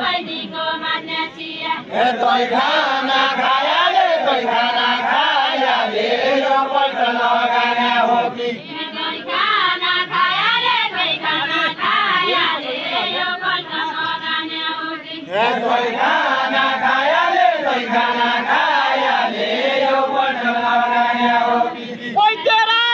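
A group of women singing a Deuda folk song together in unison, unaccompanied, in long drawn-out phrases. A new phrase starts about two thirds of the way in.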